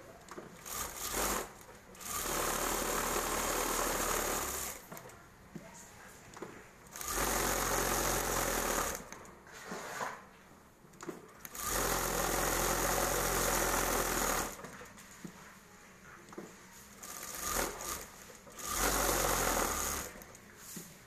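Industrial sewing machine stitching in several runs of two to three seconds each, stopping briefly between runs while the fabric is repositioned.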